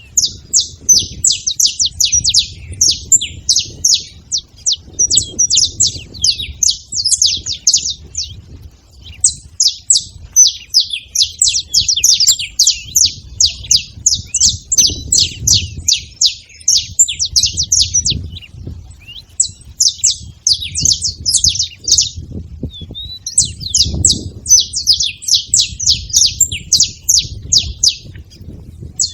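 Saffron finches chirping together in fast, dense runs of high, sharp notes, with brief pauses between bursts, over a low background rumble.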